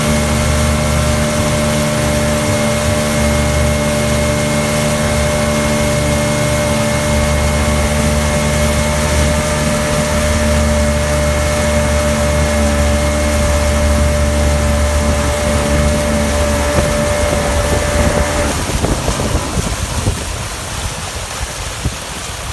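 Motorboat engine running steadily at speed over rushing wake water and wind on the microphone. About eighteen seconds in the engine note drops away and the sound falls quieter, leaving mostly water and wind.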